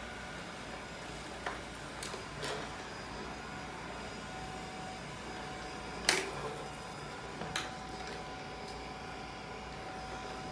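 Robot vacuum cleaner running with a steady hum and a thin high whine, broken by a few short knocks; the loudest comes about six seconds in.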